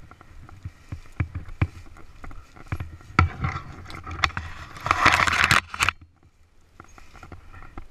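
Dirt bike jolting along rough woods single track, heard from a helmet camera: a string of knocks and thuds as it bumps over the trail. About three seconds in, leafy branches scrape across the camera for nearly three seconds, then it goes quieter.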